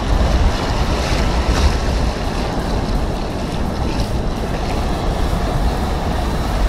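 Surf breaking and washing around the legs in the shallows, with strong wind buffeting the microphone as a heavy low rumble.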